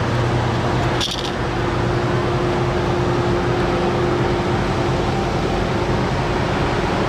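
Steady low drone of the lake freighter Mesabi Miner's engines as the ship passes close by, under a constant rush of noise, with a short click about a second in.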